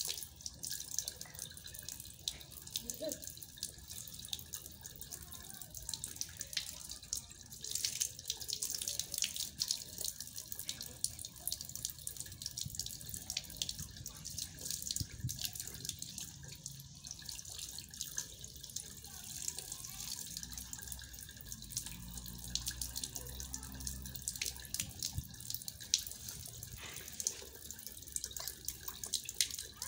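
Water running from a wall tap and splashing onto a tiled floor: a steady hiss broken by many small splashes and drips.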